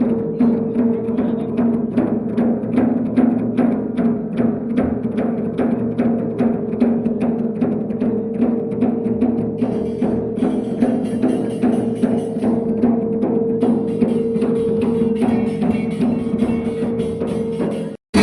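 Dhol drums beating a fast, even rhythm of about five strokes a second over a steady held tone. The sound cuts out abruptly at the very end.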